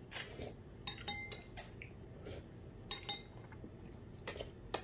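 Metal spoons and chopsticks clinking against ceramic bowls and plates during a meal: about seven separate clinks, some with a short ring.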